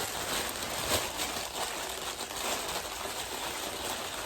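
Plastic packaging crinkling and rustling as a hand rummages for the next fidget toy, a steady crackle with many small clicks.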